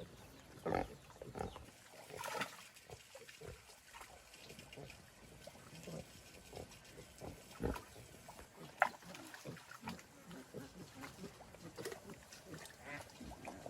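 Pigs grunting in short, irregular grunts, with a few louder ones standing out among softer ones.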